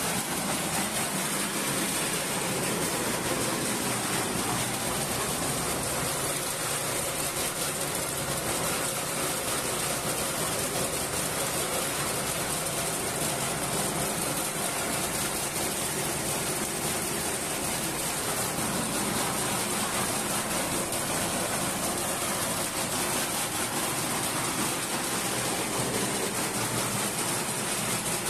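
Blower-type rice thresher running steadily, its small engine driving the drum and fan by belt, with a constant rush of air from the blower.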